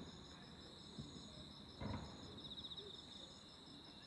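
Crickets trilling steadily in high, pulsing chirrs, with one dull, distant firework boom about two seconds in and a fainter thump about a second in.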